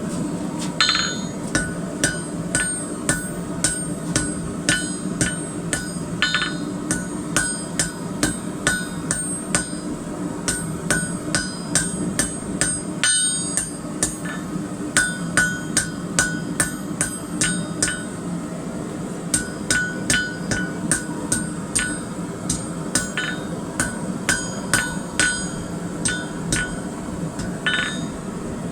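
Hand hammer striking hot steel bar on an anvil to taper the end of the stock for an S-hook: steady blows, about two a second, each with a short metallic ring, broken by a few brief pauses. A steady low hum runs underneath.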